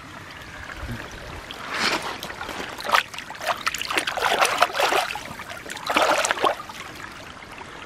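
Hand rinsing a muddy toy figurine in a shallow running stream, with irregular splashing and sloshing from about two seconds in until near the end, over the steady trickle of the stream.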